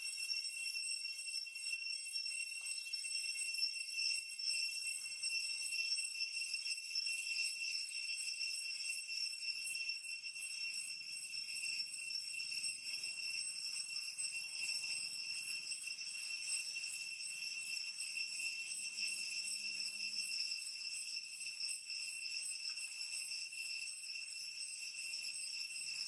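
Steady high-pitched insect chorus, several even tones droning without a break, with only faint soft low sounds underneath.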